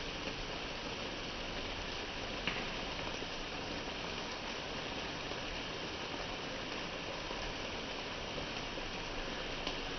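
Steady hiss of palak cooking in a pan on the stove, with a light click about two and a half seconds in and another near the end.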